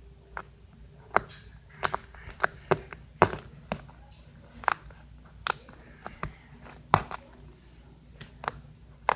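Homemade glue slime being squeezed and worked by hand, giving sharp, irregular clicking pops about one or two a second: the slime ASMR sound that shows the slime is ready.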